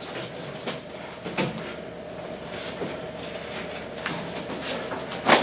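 Taekwondo uniform cloth swishing and snapping in short strokes as a student performs basic blocks and strikes, a few stronger snaps about a second or so apart, over a faint steady hum.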